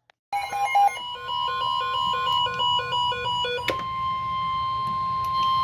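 NOAA Weather Radio warning alarm tone: one steady high tone heralding a severe thunderstorm warning. For the first few seconds a repeating electronic ringtone-like melody plays over it, then stops with a click, leaving the alarm tone alone.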